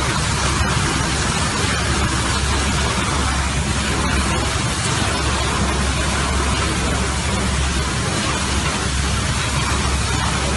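Water jetting under high pressure from a burst underground water main: a loud, steady hiss of spray that does not let up.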